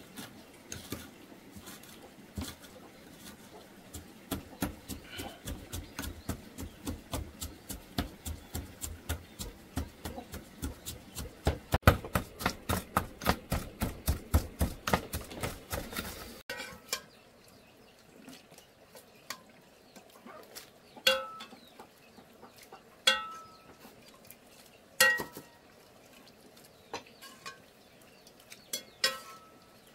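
Kitchen utensil work: a quick, even run of knocks, about four a second, growing louder and stopping abruptly about halfway through. Then a handful of separate clinks of a utensil against a metal pot or bowl, each ringing briefly.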